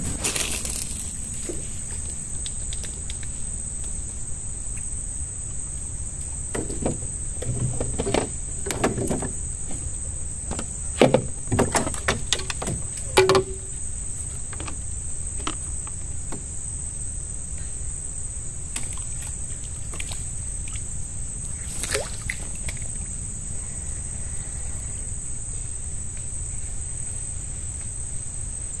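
Crickets or similar night insects keeping up a steady high-pitched drone over a steady low rumble. From about seven to thirteen seconds in there is a run of knocks and clatters as fishing gear is handled on the wooden boat.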